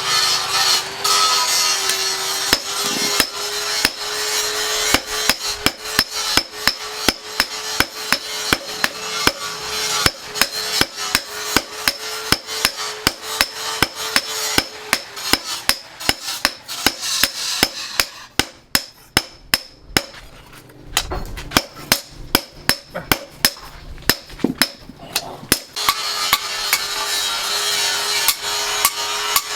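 Hammer blows on steel in a steady rhythm of about two to three strikes a second, over a steady hum that drops out for a stretch in the second half.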